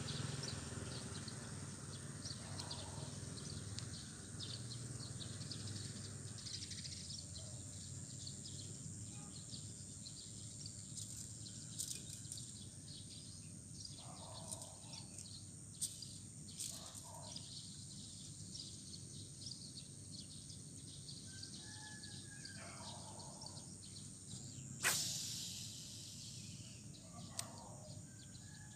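Outdoor ambience by an urban pond: a steady low rumble of distant city traffic under a steady high hiss, with a few faint ticks and short bird chirps late on. About 25 seconds in comes one sharp, sudden sound that fades out over a second or so.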